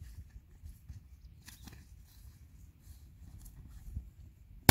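Faint rustling and steps through the crop with low wind rumble, then a single loud 12-gauge shotgun shot right at the end, fired at a quail flushed by the pointer dog.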